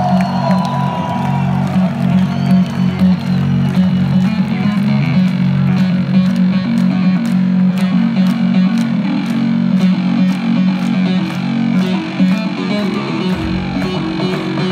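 Live electronic music played loud over a concert PA and heard from within the crowd. A heavy low riff runs throughout, a steady beat of sharp hits comes in about five seconds in at about two a second, and a deep bass enters near the end.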